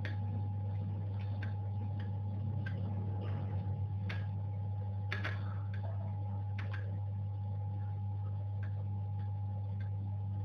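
Scattered light clicks and taps of small hand tools working on a circuit board while a component is taken off, over a steady low electrical hum and a faint high tone.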